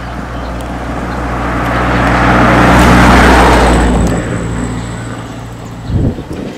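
A motor vehicle passing close by: engine and road noise swell to a peak about three seconds in, then fade away.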